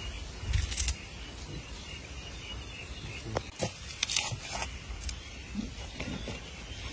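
Soft, scattered rustles and a few sharp clicks from hands pulling the skin off a water snake, over a steady outdoor background hiss.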